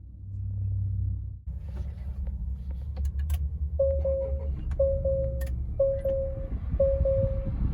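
Low engine rumble inside a 2019 Acura RDX's cabin, with a few clicks about three seconds in. From about four seconds in, a dashboard warning chime beeps steadily, one short-and-long tone about once a second.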